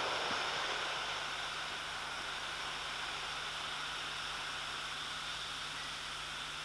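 Steady hiss with a faint, unchanging low hum, easing slightly in loudness over the first two seconds.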